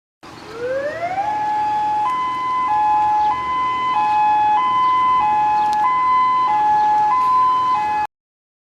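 Electronic emergency alert alarm: a tone rising in pitch over about a second, then two tones alternating high-low about every two-thirds of a second, like a hi-lo siren. It cuts off suddenly near the end.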